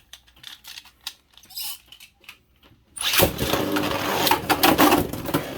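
A few faint clicks, then about three seconds in the Beyblades Judgement Joker and Helios Volcano are launched into a plastic stadium. A loud whirring rattle of the spinning tops follows, with repeated sharp clashes as they collide.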